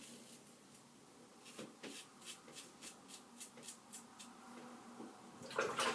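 Safety razor scraping through several days' lathered stubble in short strokes, a crisp scratchy rasp a few times a second, followed near the end by a louder splash of water as the razor is rinsed.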